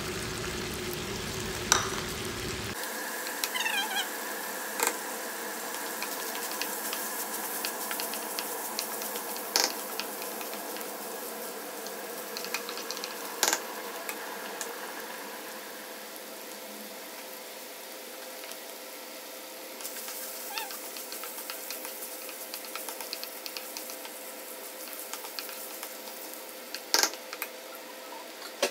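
Meat with ginger and garlic sizzling as it is sautéed in a frying pan and stirred with a wooden spoon, with a few sharp knocks of the spoon against the pan.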